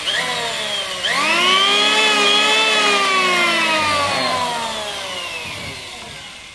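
Electric hand planer running with no load: the motor whines up to speed, sags as the trigger is let off about a second in, comes back up, then is released and spins down slowly, its whine falling in pitch and fading.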